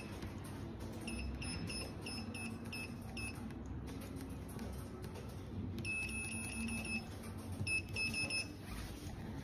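Button beeps from the control panel of an SL11C vacuum cupping therapy machine as its plus and minus keys are pressed to set release and suction time: short high beeps about three a second for the first three seconds, then faster runs of beeps after a pause, about six and eight seconds in.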